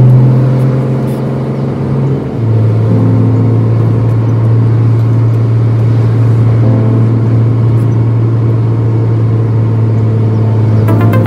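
Steady low drone of a truck's diesel engine heard inside the cab while driving. It drops a little in pitch about two seconds in.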